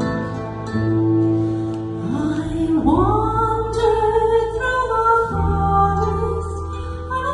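Live acoustic folk music from a duo: low notes held underneath, with a melody line that slides up into a long held note about three seconds in.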